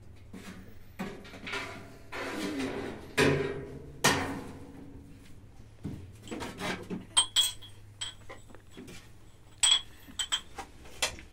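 Glass and metal dishes clinking and knocking together: a few sharp clinks, some with a short bright ring, mostly in the second half.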